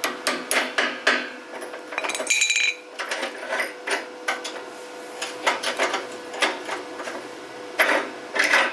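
Hand tools knocking and clinking on metal bike parts in irregular, sharp strikes, with one brief ringing metallic clink about two and a half seconds in.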